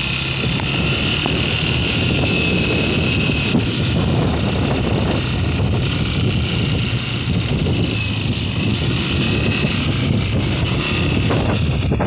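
Wind buffeting the microphone over a motor scooter's engine running steadily on the move.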